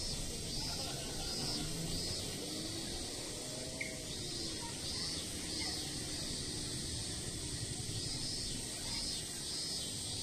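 Outdoor summer ambience of insects chirring, with a regular pulsing call over a steady high hiss and a low wind rumble underneath.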